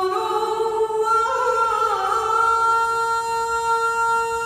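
A man's solo voice chanting the adhan, the Islamic call to prayer, in one long drawn-out phrase. The pitch steps up twice, dips about two seconds in, then settles on a long, steady held note.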